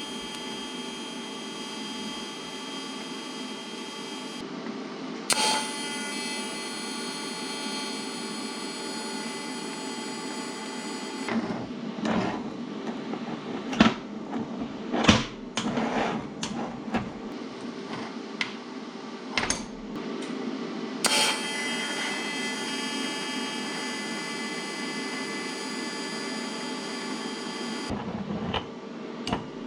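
A shop machine's electric motor runs with a steady whine in three stretches, each starting with a knock and cutting off abruptly. Between them, about a third of the way in, come irregular metal clanks and knocks, the loudest two close together, with a few more knocks near the end.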